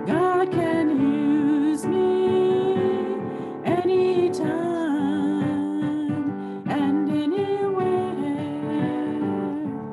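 A woman singing a slow song with vibrato, in long phrases, over sustained chords played on an electronic keyboard.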